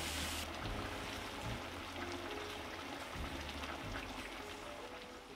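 A stew of meatballs and white beans in tomato sauce simmering in a pan over medium heat: a steady soft bubbling hiss that slowly fades out toward the end.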